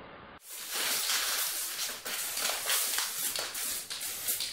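Aerosol spray paint can hissing in repeated bursts, some short and some long, as black paint is sprayed onto a wall. It starts suddenly about half a second in.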